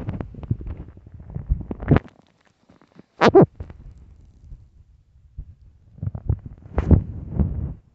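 An empty stomach growling and rumbling from hunger in irregular gurgling bursts: a run of them at first, one short loud gurgle a little past three seconds in, a quiet stretch, then more gurgles from about six seconds.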